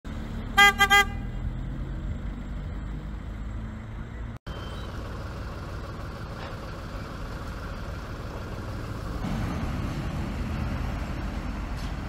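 A car horn sounds three short toots about half a second in, over steady street traffic rumble. The sound drops out for an instant just after four seconds, and the traffic rumble grows louder from about nine seconds on.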